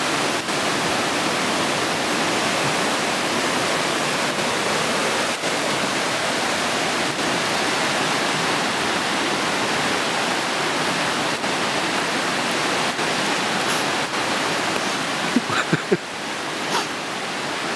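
East Fork Quinault River rapids rushing through the gorge below the bridge, a steady even roar of whitewater. A few sharp clicks sound near the end.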